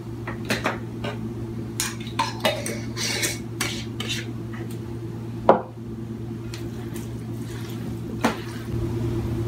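Light clinks and taps of a plastic measuring spoon and a small glass jar against a glass mixing bowl as sauce is measured into ground-meat stuffing, with one sharper clink about five and a half seconds in. Near the end, hands start mixing the meat in the bowl.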